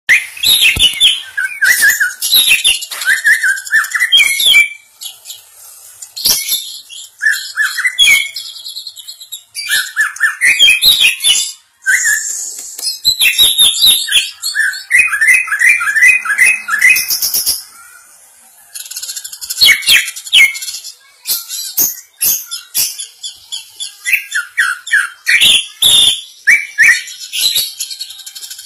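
Caged cucak ijo (green leafbird) singing: fast runs of chirps and whistled glides mixed with sharp clicking notes, in bursts with short pauses between them.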